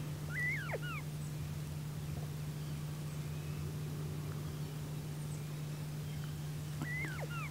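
Northern bobwhite quail giving its whistled call, twice: once near the start and again near the end, over a steady low hum.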